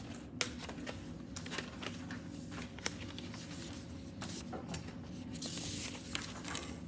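Sheets of paper handouts rustling and sliding as they are taken off a stack and passed out, with scattered light clicks and taps and a longer rustle near the end.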